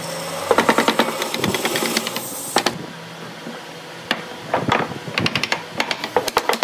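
Pieces of weathered boat wood knocking and clattering against each other and the workbench as a seat frame is fitted together by hand. A dense run of quick knocks comes first, then single knocks, then a wooden block tapping a side rail into place with a series of sharp knocks near the end.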